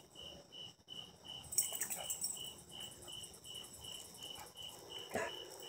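Crickets chirping steadily in the night, about three evenly spaced chirps a second, over a thinner hiss of other insects, with a short, sharper sound near the end.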